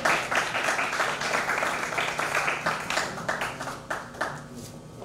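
A small audience applauding, many hands clapping together, thinning out to a few last claps about four seconds in.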